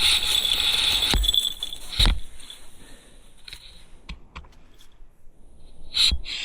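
Small metal pieces jingling steadily, then stopping about two seconds in with a thump. A few light clicks follow, then another thump near the end.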